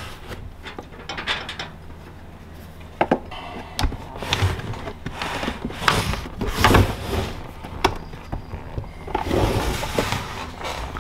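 The plastic case of an Enjoybot 100Ah LiFePO4 battery being pried and pulled apart by hand: irregular scraping and rubbing with sharp clicks and knocks, busiest in the middle and again near the end, as the sealed lid is worked loose.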